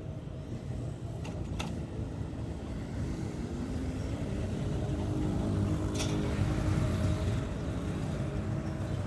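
A motor vehicle's engine running nearby, a low rumble that grows louder through the middle and eases off near the end, with two short sharp clicks.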